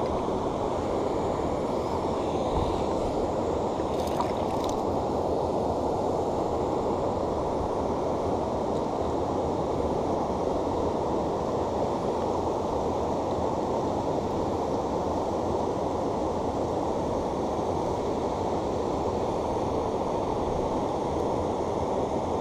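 Steady rush of river water pouring over a weir.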